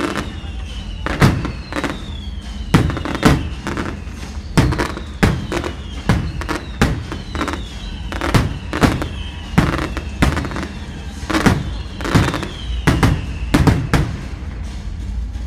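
Fireworks display: shells bursting in an uneven run of sharp bangs, about one or two a second.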